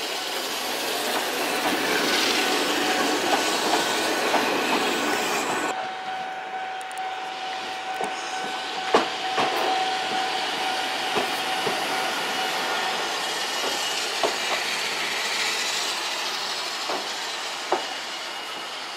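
Electric train running along the track: a steady rumble with a thin steady whine above it and a handful of sharp clicks from the wheels. About six seconds in, the sound changes abruptly and the high hiss drops away.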